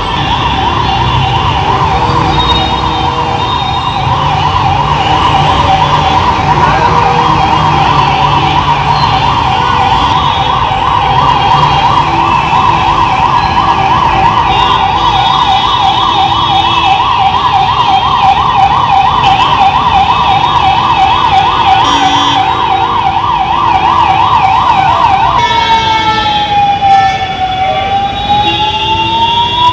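Emergency vehicle siren sounding loudly in a fast warble, switching to a slow falling-and-rising wail near the end.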